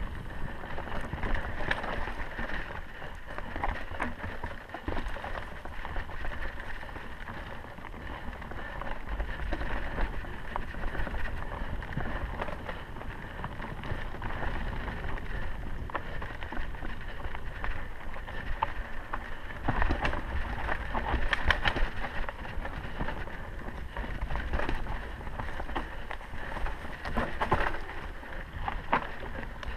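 Mountain bike riding along a forest dirt singletrack: a steady rush of tyres on dirt with many small knocks and rattles as the bike goes over roots and bumps.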